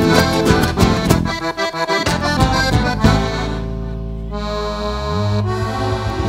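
Live folk band with accordion, guitars, bass and drum playing an instrumental passage. The rhythmic playing gives way about three seconds in to a long held chord, with a low note sliding upward before the beat comes back near the end.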